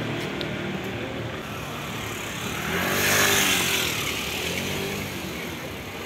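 A motor vehicle passing on the street: engine and tyre noise swell to a peak about three seconds in, then fade away.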